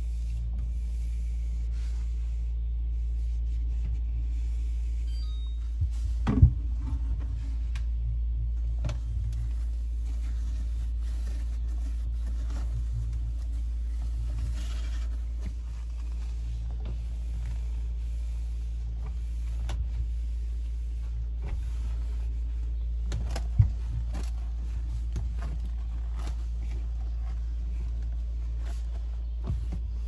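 A microfiber cloth wiping the plastic inside of a refrigerator, with faint rubbing and a few sharp knocks against the plastic, the loudest about six seconds in and another well past the middle, over a steady low hum.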